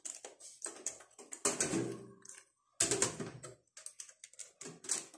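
Irregular clicks, taps and scrapes of a CPU cooler being handled and fitted by hand onto the motherboard's mounting bracket.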